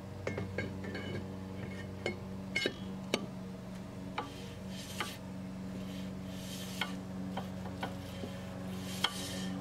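Brake drum being fitted over the rear brake shoes and turned by hand: scattered light metallic clinks and brief scraping as the shoes drag lightly inside the drum, the sign that the shoe adjuster is set to just enough resistance. A steady low hum sits underneath.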